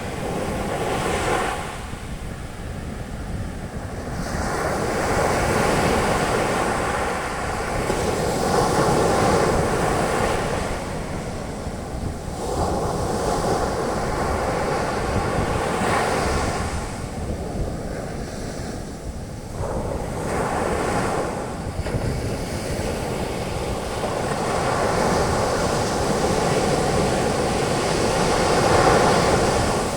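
Ocean waves breaking and washing up a beach, the foam hissing as each wave spreads. The surf swells and ebbs every few seconds, and one of the loudest surges comes near the end.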